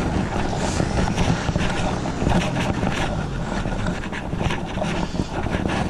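A Renault Clio hatchback's engine running as the car turns and pulls away close by, with wind rumbling steadily on the microphone.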